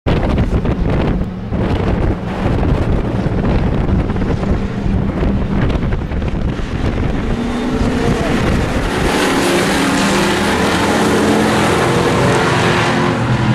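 Engines of a pack of pickup race trucks running together on a speedway, with wind noise on the microphone. The engine notes stand out more clearly in the second half.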